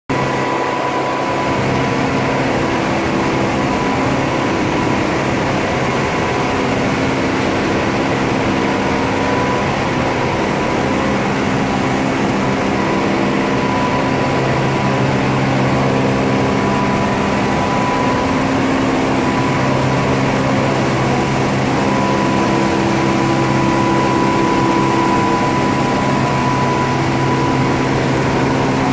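Comexi F+ ten-colour flexographic printing press running with the printed film web moving through it: a loud, steady machine noise with a low hum and a few steady whining tones, one of which swells and fades now and then.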